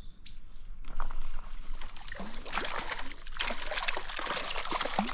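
Water splashing and sloshing at the surface, starting about a second in and getting busier, with many short sharp splashes: a hooked trout thrashing as it is played.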